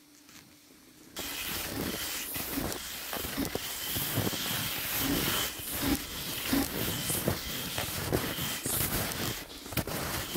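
Crunching and scraping over snow under a steady hiss, starting abruptly about a second in, with many irregular knocks.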